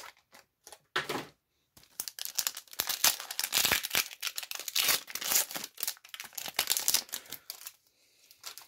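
Foil wrapper of a Pokémon card booster pack being torn open and crinkled by hand: a few short rustles, then a dense run of crackling from about two seconds in until shortly before the end.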